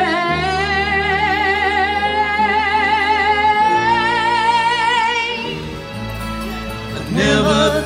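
A woman sings one long held note with a wide vibrato, rising slightly in pitch, over a live band with electric guitar and bass. The note fades about five and a half seconds in while the band plays on, and singing comes back in near the end.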